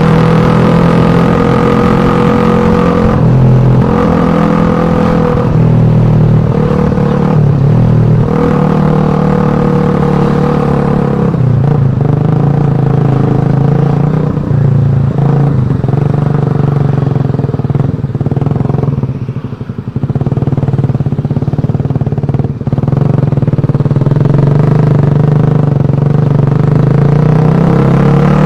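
Suzuki Satria F150 motorcycle's single-cylinder four-stroke engine running through its exhaust, the revs rising and falling, with a brief drop about twenty seconds in.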